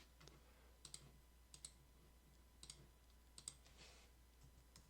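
Faint scattered clicks from working a computer's input devices, a handful of single clicks and quick pairs over near-silent room tone.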